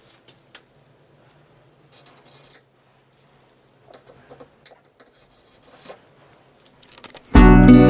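Faint scratchy, rubbing noises with a few light clicks, then loud strummed acoustic guitar music starts suddenly near the end.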